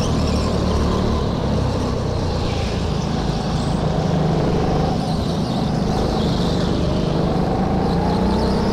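Go-kart engine running steadily at speed, heard from onboard the kart as it follows another kart through the corners, its note rising slightly near the end.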